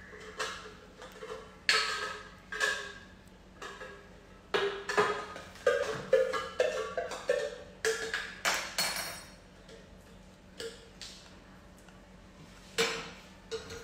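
Kitchen utensils clinking: a spoon scooping ghee and tapping against a small metal ladle and container, a string of sharp ringing clicks that thin out after about nine seconds.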